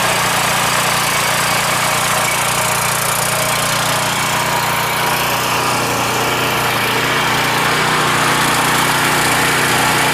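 Champion 7000/9000-watt portable generator's 439cc single-cylinder engine running steadily, freshly started by its remote electric start.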